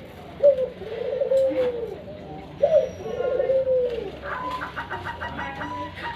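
Zebra dove (perkutut) cooing: two low, rippling, trilled coo phrases, each opening with a short sharp note and falling away over about a second and a half. A higher, rapidly repeated sound comes in about four seconds in.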